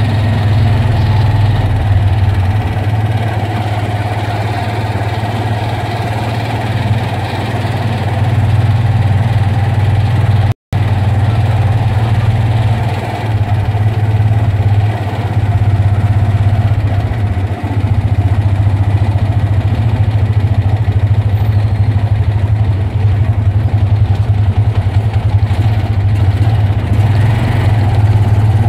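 Motorcycle engine of a tricycle (motorcycle with sidecar) running steadily, heard from inside the sidecar while riding, with a low hum. The sound cuts out for a split second about ten seconds in.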